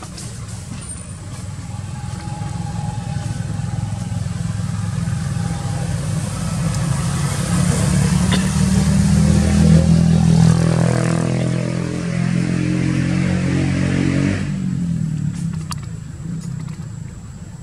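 A motor vehicle's engine passing close by, growing louder to a peak about ten seconds in, then dropping in pitch and fading away a few seconds later.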